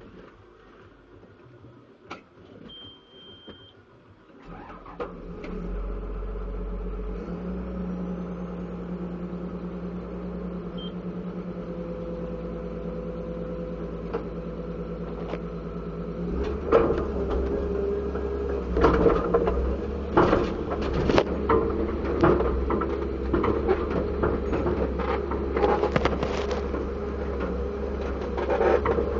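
Komatsu PC200-7 excavator's six-cylinder diesel engine, preceded by a one-second beep, starting about four and a half seconds in and settling into a steady idle. About halfway through it runs louder and rougher, with repeated knocks and clanks over it.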